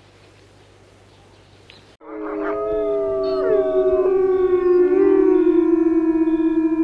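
A pack of wolves howling in chorus. Several voices start together about two seconds in and hold long, overlapping notes, some of them sliding down in pitch.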